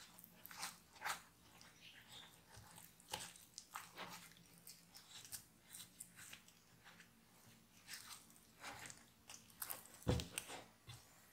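Spatula stirring and folding sticky, shaggy bread dough in a glass dish: soft, irregular squelches and scrapes as the dough tears and stretches, with a louder thud near the end.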